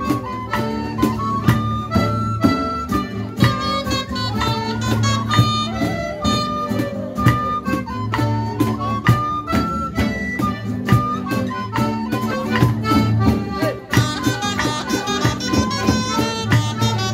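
A live folk band playing a traditional Occitan dance tune: a bright melody on small wind pipes over diatonic accordion, acoustic guitar and a steady drum beat.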